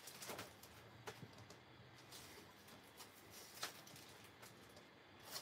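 Near silence: room tone with a few faint, short clicks or rustles, about three in all.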